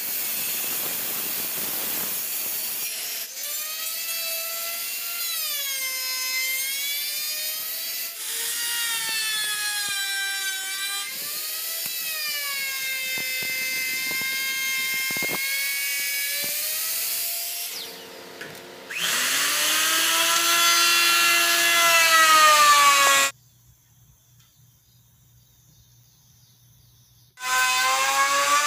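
Power tools cutting oak in a run of short edited clips: a handheld circular saw and a wood router. A noisy cut comes first. Then a high motor whine sags in pitch as the cutter bites into the wood and rises again as it frees up. The sound cuts off abruptly between clips, with a few seconds of near silence near the end.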